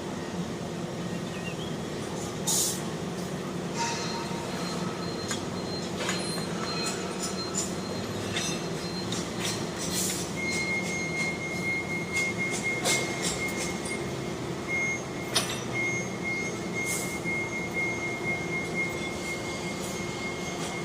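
Construction-site machinery running with a steady low hum, broken by scattered metallic clicks and knocks. About ten seconds in a steady high-pitched squeal starts, flickering on and off, and continues.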